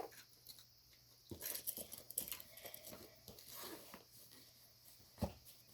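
Puzzle-piece fidget toys being handled and shuffled: faint scattered clicks and rustles, with a soft knock about a second and a half in and another near the end.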